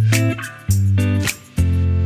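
Background music with guitar: chords struck in short stabs, with brief gaps between them.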